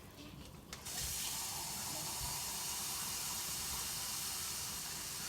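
Water pouring in a steady stream into the soup pot. It starts suddenly about a second in.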